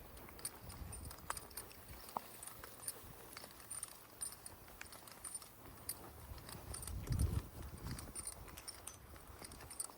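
Walking footsteps with light, irregular metallic jingling of dog tags and lead clips, and a brief low rumble against the microphone about seven seconds in.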